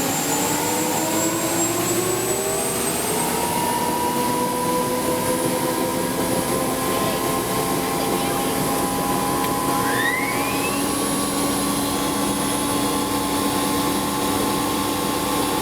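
Lycoming T53 turboshaft of a UH-1 Huey helicopter spooling up after start: a rising whine that levels off into a steady run about three seconds in.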